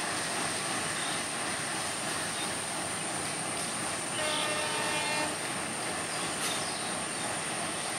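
A diesel locomotive's horn sounds once, a single pitched blast of just over a second, about halfway through, over a steady wash of noise with a thin high whine.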